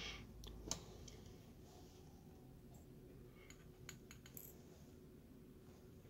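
Mostly near silence with a few faint clicks and bits of plastic handling noise as a small plastic vial of Snaptron dome buttons is opened and handled. The sharpest click comes just under a second in, and a few fainter clicks come about halfway through.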